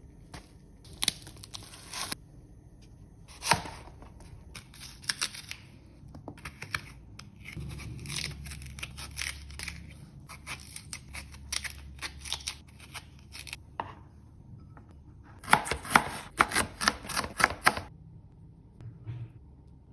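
Knife chopping and cutting through a pear on a cutting board: bursts of quick strokes with short pauses between them, the longest and loudest run near the end.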